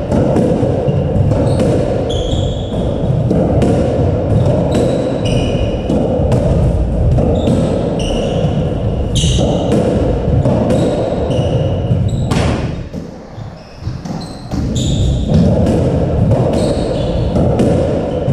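Squash rally in an enclosed court: the ball cracking off racket strings and the walls in quick, irregular knocks, with short squeaks of shoes on the wooden floor. The hitting drops away briefly about two thirds of the way through, then picks up again.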